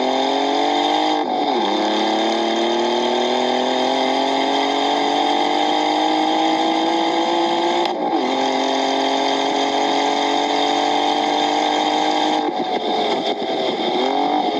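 A car engine accelerating through the gears. Its pitch climbs, drops at a gear change about a second in, climbs slowly for several seconds, and drops again at a second change about eight seconds in. It climbs once more, then falls away near the end in a few short rises and dips, as if the throttle is lifted and blipped.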